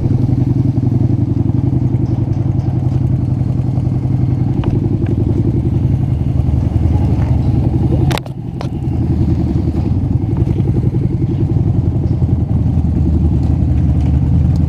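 Honda Shadow's air-cooled V-twin engine running steadily at low speed. A little past halfway there is a single sharp click, and the engine is briefly quieter.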